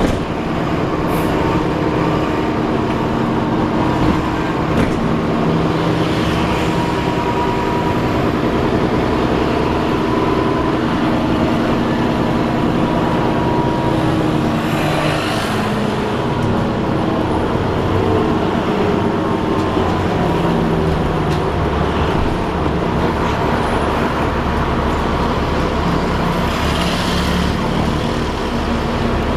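Alexander Dennis Enviro 400 double-decker bus running, heard on board: a steady drivetrain whirring made of several held tones, one of which falls in pitch partway through as the bus changes speed. Two brief hisses, about halfway and near the end, stand out above the whir.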